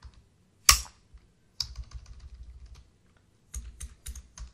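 Typing on a computer keyboard: one loud keystroke under a second in, then runs of quick keystrokes.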